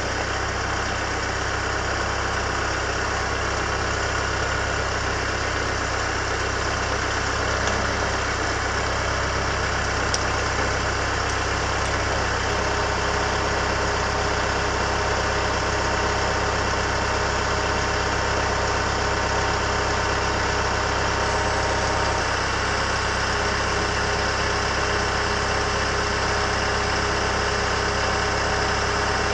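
Tractor engine running steadily near idle while its front-loader forks slowly lift a heavy load. About twelve seconds in, a steady higher tone joins the engine as the lift gets under way.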